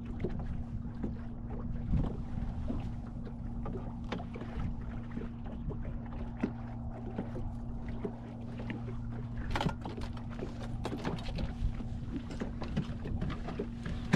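Boat motor running steadily at trolling speed, a low even hum, with scattered clicks and knocks from handling in the boat and a sharper knock about ten seconds in.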